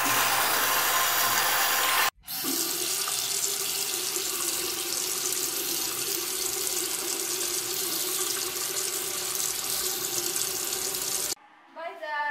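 Water running from a bathroom tap into a sink basin, a steady rush with a brief break about two seconds in, then cutting off suddenly near the end.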